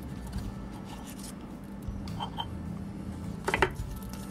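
Quiet handling noise of a fabric jacket being moved about on a metal arbor press, with a brief rustle about three and a half seconds in, over a steady low hum.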